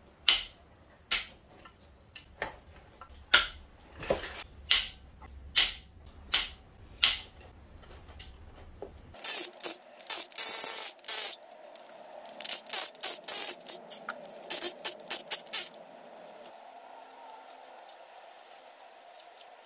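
Cylinder-head bolts of a 4.8-litre LS V8 worked with a long-handled ratchet, a sharp crack about once a second for about nine seconds. Then a DeWalt cordless impact wrench runs one burst of about two seconds and a string of short bursts, spinning the bolts out.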